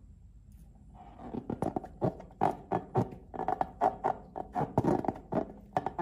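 Slime being squeezed and kneaded by hand, a quick run of sticky, wet pops and clicks, several a second, starting about a second in.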